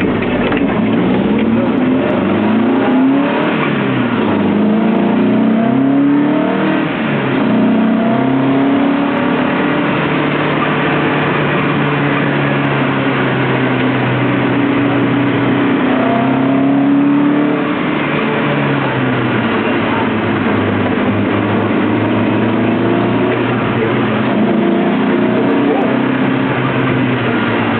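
Lotus Elise's four-cylinder engine being driven hard on track, its pitch climbing and dropping again and again through the gear changes.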